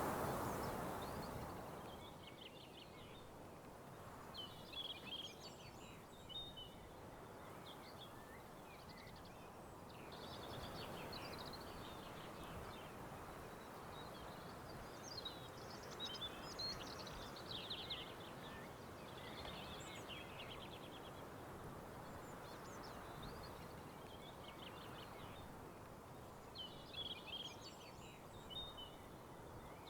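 Songbirds singing in short, rapid phrases every few seconds over a steady, soft rushing background of forest ambience.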